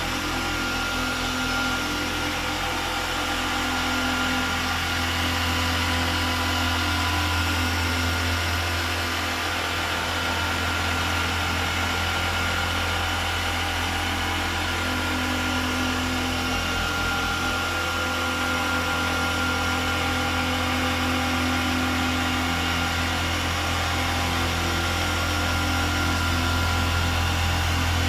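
Electric orbital polisher running steadily against car paintwork, a continuous motor whir over a low hum, as a medium-cut polish is worked in on a microfiber pad to refine the marks left by the cutting stage.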